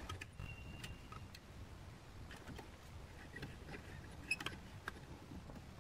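Faint, scattered small clicks and ticks of hands working a speaker wire into a car amplifier's screw terminal block.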